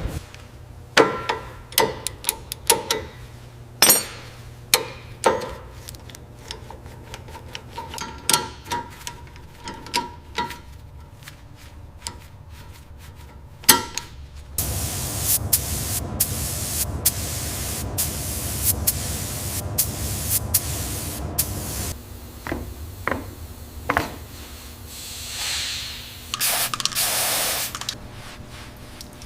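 Workshop tool work: a run of sharp knocks and taps, then a steady hiss-like tool noise for about seven seconds, then more knocks.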